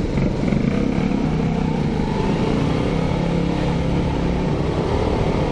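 Honda Monkey's small single-cylinder four-stroke engine running as the motorcycle rides slowly across a ferry's car deck.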